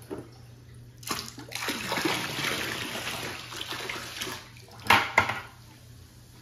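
Liquid poured from a container in a thick stream into pool water, splashing and gurgling at the surface; it starts about a second in and runs for about three seconds, then two short sharp splashes follow near the end.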